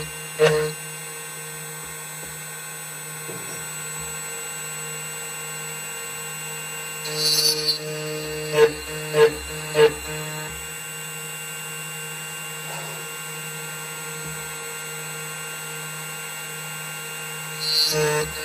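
2m2tank CNC key cutting machine running steadily, its cutter milling the cuts into a TOY43 key blank, with a few short louder bursts near the middle.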